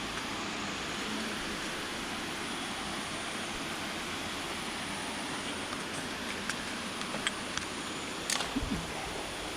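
Steady rushing of a rocky jungle river near a waterfall, with a few faint knocks or clicks in the last few seconds.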